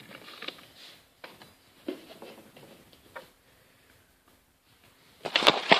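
Handling noises of supplies on a table: a few faint scattered taps, then a burst of loud sharp clicks and knocks near the end.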